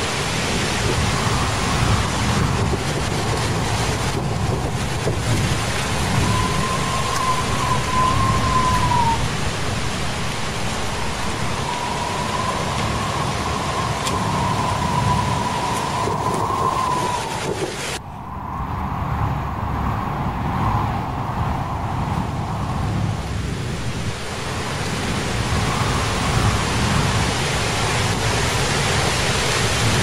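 Dubbed-in storm sound effect: a steady rushing wind-and-rain noise over a low rumble, with a wavering whistle that comes and goes several times. The high part of the noise drops out briefly about eighteen seconds in.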